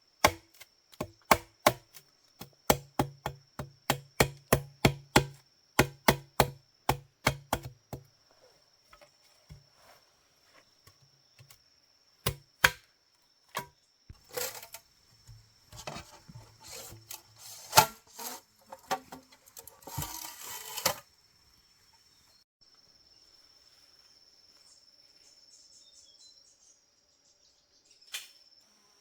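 Rapid, even chopping strikes, about three a second, for the first eight seconds, then scattered knocks and a spell of rustling handling noise. A thin steady high insect whine runs underneath.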